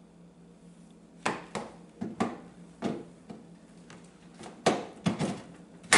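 Hard plastic steering wheel and column parts of a lawn tractor knocking and clacking as they are handled and fitted together: about ten irregular sharp knocks starting about a second in, the loudest near the end.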